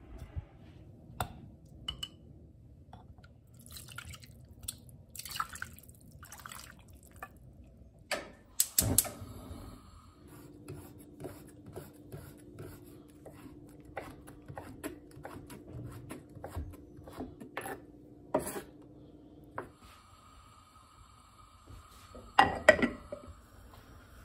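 Chef's knife chopping kelp on a wooden cutting board, a run of sharp taps about two a second. There is louder clattering of kitchenware near the start and again near the end.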